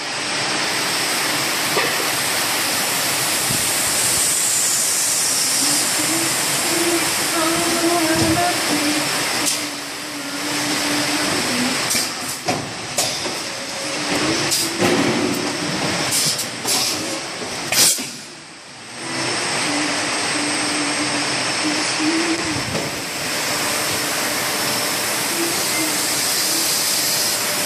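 A Jinjun two-layer extrusion blow molding machine running, with a steady loud hiss of machinery and air. A run of sharp clacks comes between about twelve and eighteen seconds in, then a short lull before the hiss returns.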